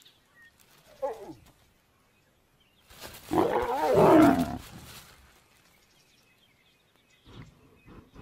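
Lion snarling: a short falling snarl about a second in, then a louder, rougher snarl of about a second and a half around the middle, its pitch sweeping down and up.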